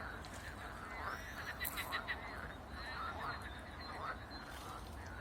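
A chorus of frogs croaking, many short calls overlapping without pause, with a few sharper clicks a little under two seconds in.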